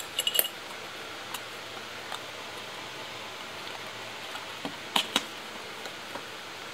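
A few light metallic clinks near the start as a small metal tool is handled and set down, then a white cardboard box's flap is pulled open with two sharp clicks about five seconds in, over a steady hiss.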